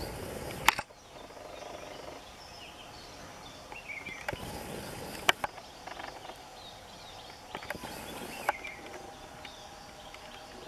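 Outdoor ambience with scattered bird calls, short downward chirps a few seconds apart. Three sharp clicks are also heard; the loudest comes under a second in, just as a low rumbling background suddenly drops away.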